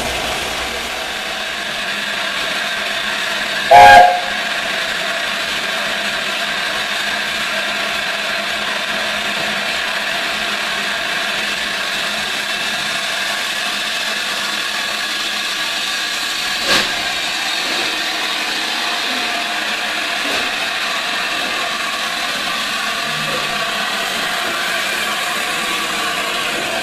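Steady hiss of escaping steam from the LNER A4 Pacific steam locomotive 60009 Union of South Africa. A short, very loud blast comes about four seconds in, and a faint click comes a little past the middle.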